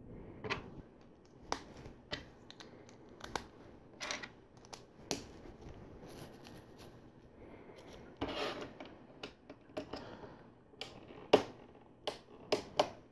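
LEGO plastic bricks and pieces clicking and snapping together as they are handled, with short rustles of loose pieces being sorted; sharp clicks come at irregular intervals, the loudest about two-thirds of the way through.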